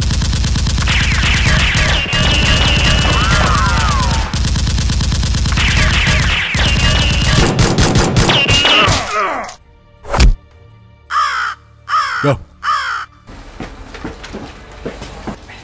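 Rapid automatic gunfire sound effects with shrill cries over them for about nine seconds. Then a single loud bang about ten seconds in, followed by a few short cries that fall steeply in pitch.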